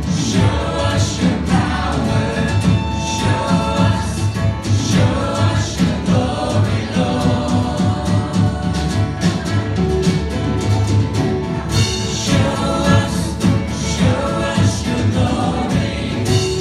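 Live contemporary worship music: a band with several singers, guitars and drums playing and singing together at a steady beat.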